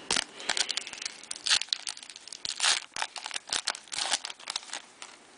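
Foil wrapper of a 2010 Topps Unrivaled trading-card pack crinkling and tearing open in the hands, in a quick run of irregular crackles.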